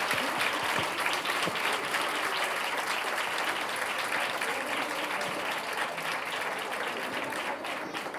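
Audience applauding: many hands clapping in a dense, steady patter that slowly dies down near the end.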